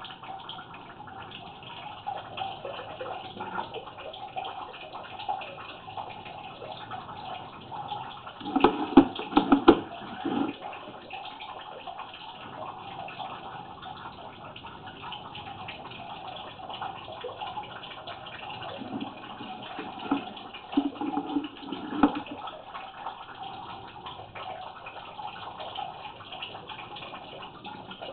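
Steady running water, with a burst of louder knocks and clatter about nine seconds in and another around twenty seconds in.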